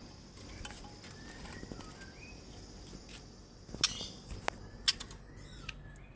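Young murai batu (white-rumped shama) chick giving short, soft rising chirps, with a few sharp clicks and taps in the second half. A steady high thin tone runs through the first two-thirds and stops.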